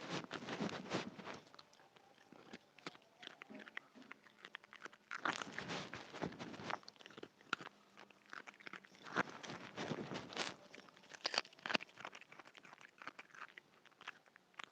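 A dog crunching and chewing raw carrot: crisp crunches come in irregular bursts with short pauses between bites.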